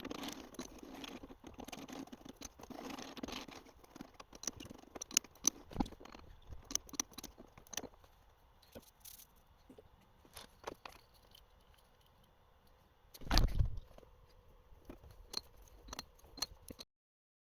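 Metal clinking and clattering as lathe chuck jaws and the steel workpiece are handled, with a heavy thump about thirteen seconds in.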